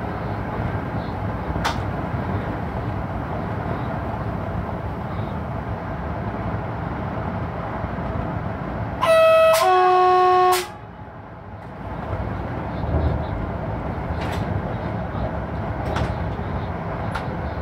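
Electric locomotive cab running noise, steady, with the locomotive's two-tone horn sounded once about nine seconds in: a short higher note followed by a longer lower one.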